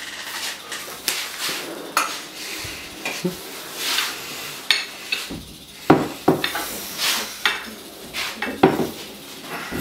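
Metal snake-handling tongs clinking and knocking on a concrete floor while a king cobra is dragged along by them, with irregular sharp clicks and short scraping noises.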